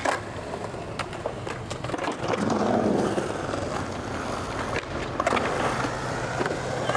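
Skateboard wheels rolling on concrete, with a few sharp clacks of the board along the way.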